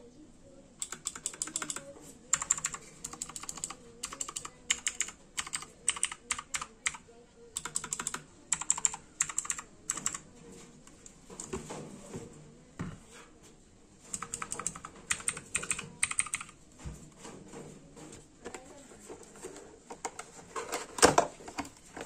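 Keys being pressed on a T-Dagger Naxos T-TGK310 mechanical keyboard with clicky Outemu Blue switches: runs of quick, sharp key clicks that stop about ten seconds in and pick up again briefly a few seconds later. A single louder knock comes near the end.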